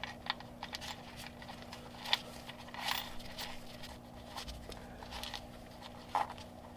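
Oil drain plug being threaded by hand into a Porsche 997 oil sump: faint scattered ticks and light scraping, with a few sharper clicks about two, three and six seconds in. A faint steady low hum runs underneath.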